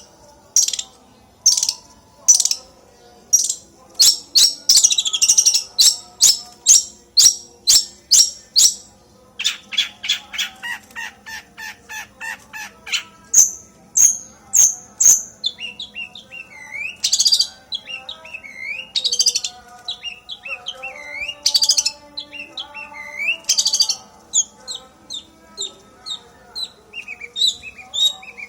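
A songbird singing a varied song. It opens with sharp chirps repeated about twice a second, goes into a fast rattling run of notes around the middle, then gives swooping whistled notes that rise and fall.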